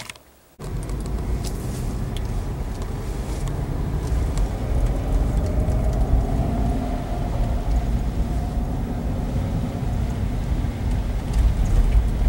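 Car driving: steady road and engine rumble, starting about half a second in after a brief gap.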